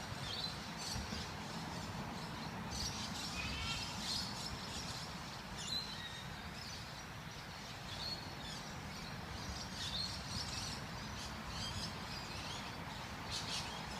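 Small birds chirping and trilling here and there, with short high calls scattered through, over a steady low background rumble.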